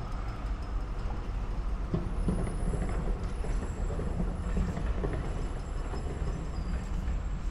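Melbourne trams running on the street tracks: a steady low rumble, with a faint high whine from about two seconds in until near the end.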